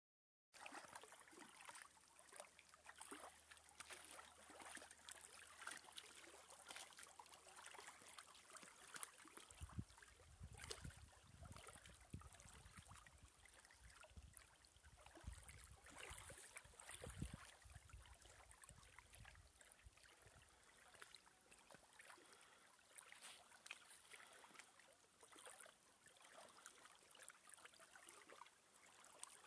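Faint small waves lapping and trickling against the lakeshore rocks and logs. A low rumble on the microphone comes and goes for about ten seconds in the middle.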